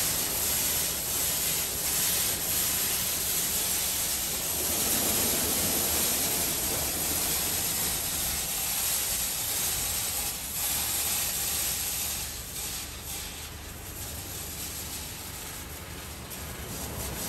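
Automatic gantry car wash spraying water over a car: a steady hiss that eases off somewhat in the last few seconds.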